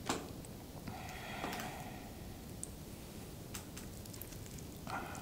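Quiet handling sounds as gloved fingers pick at a raw lobster tail on a plate: a sharp click near the start, then a few small clicks and soft wet squishes.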